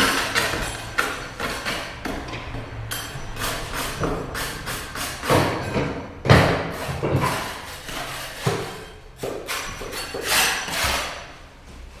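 Irregular knocks and thuds of hand work on a wooden plank floor, the loudest about six seconds in.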